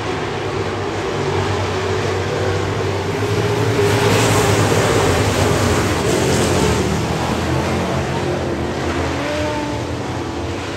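A pack of dirt-track street stock race cars running their V8 engines, growing louder as the cars pass close by about four to six seconds in, then fading as they move away down the track.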